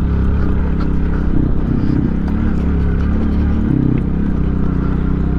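Motorcycle engine running steadily at low revs while riding a rough dirt and gravel track, with scattered small clicks and rattles.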